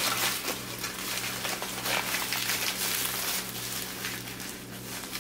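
Close-miked chewing of a cheeseburger: wet, irregular mouth and food crackles, over a steady low hum.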